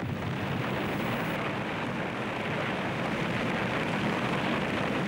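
Steady, dense rushing noise of a combat sound track over scenes of explosions and fires, coming in suddenly at full level.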